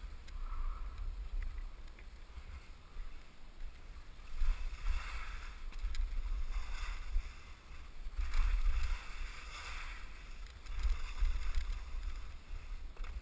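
Skis scraping over chopped-up packed snow through a run of turns, the scrape swelling with each turn every second or two. Under it, wind rumbles on the helmet or chest camera's microphone.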